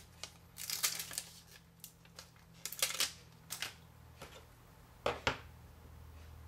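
Handling of a clear plastic stamp sheet and its sleeve and an acrylic stamping block: scattered rustles and light clicks and taps, with a sharp pair of clicks about five seconds in.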